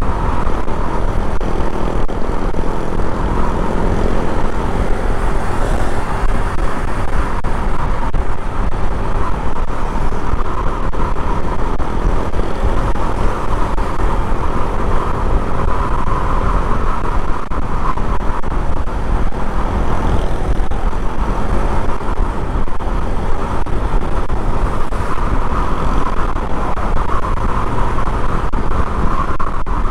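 A motorcycle cruising at steady speed: engine running under a loud, unbroken rush of wind and road noise on the onboard microphone.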